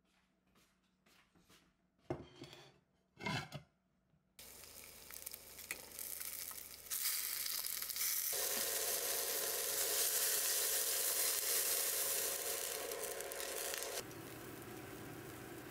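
A couple of knocks from cookware being handled, then chicken pieces sizzling as they brown in an earthenware pot on a gas stove, getting louder. About fourteen seconds in, this gives way to a quieter, steady sound of the water-filled pot boiling around the chicken.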